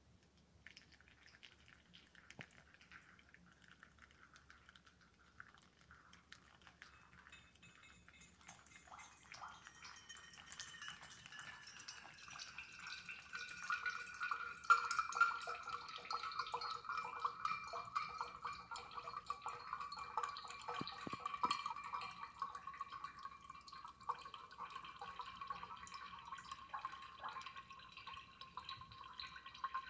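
Hot water poured from a gooseneck kettle onto coffee grounds in a stainless steel mesh pour-over dripper, with coffee trickling and dripping through into an insulated bottle below. It grows louder about halfway through, and a ringing tone slowly falls in pitch.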